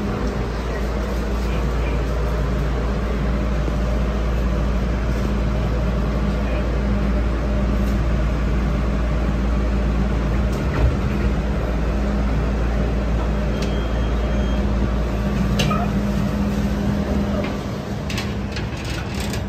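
Steady low hum and rumble inside a funicular railway car. It drops off about seventeen seconds in, and a few sharp clicks of footsteps on metal grating follow.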